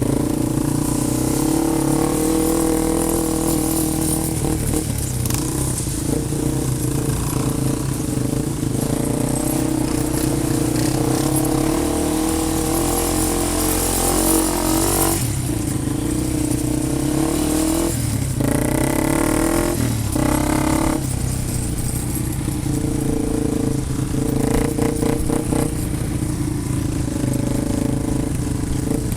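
Off-road vehicle engine running steadily, its pitch shifting a few times near the middle.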